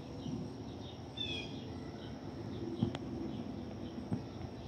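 Outdoor ambience of insects chirping faintly in a steady repeating pattern over a low rumble, with a short bird chirp about a second in and a single sharp click near the middle.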